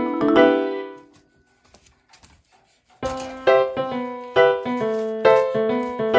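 Background piano music that fades out about a second in, leaving a pause of about two seconds with only a few faint clicks, then starts again.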